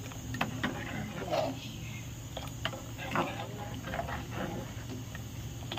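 Steel spoon stirring milk in a steel pot, with scattered sharp clicks where the spoon strikes the pot's side, over a steady low hum.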